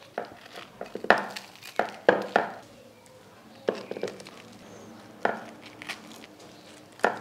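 Fried bread slices being set down and pressed into a glass baking dish: a few short crackles and taps spread through the moment.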